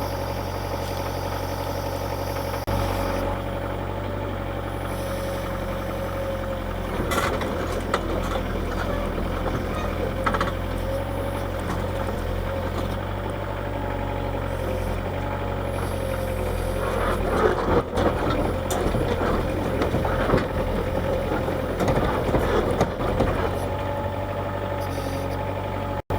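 Diesel engine of an old Kubota KH-90 mini excavator running steadily, with irregular clanks and rattles from about seven seconds in as the machine is moved.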